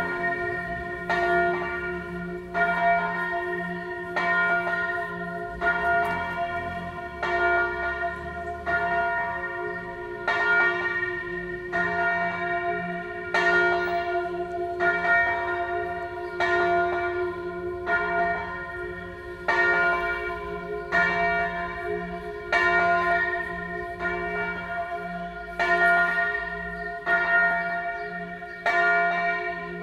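A single large church bell, the F3 bell cast by Achille Mazzola in 1928 (689 kg), swung full circle in the Tyrolean style. Its clapper strikes at a steady pace, about once every second and a half, and each stroke rings on into the next.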